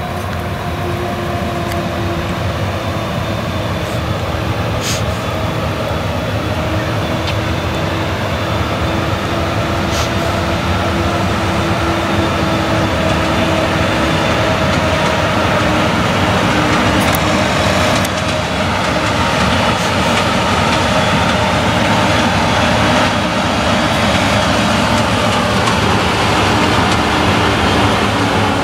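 Claas Jaguar 970 forage harvester chopping maize: its MAN V8 engine and chopper running steadily under load, a constant drone with held humming tones. It grows slowly louder as the machine comes closer.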